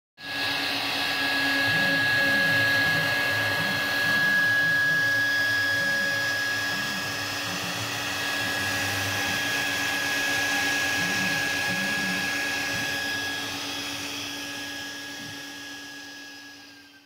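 CNC router spindle running steadily as it carves wood, with a constant high-pitched whine over motor and cutting noise. It fades over the last few seconds, then cuts off.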